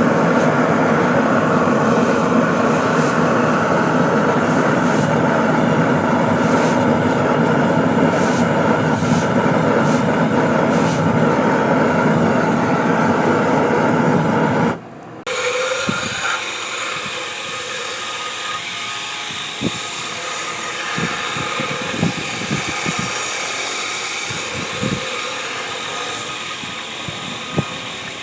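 Shop machinery running with a loud, steady rushing noise that cuts off abruptly about fifteen seconds in. A quieter steady running noise with scattered light clicks follows.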